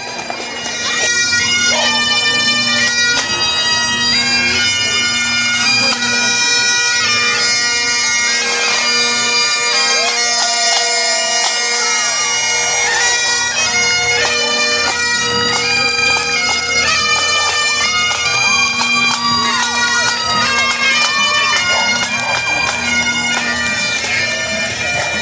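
Bagpipes playing a tune over their steady drones, coming in loudly about a second in.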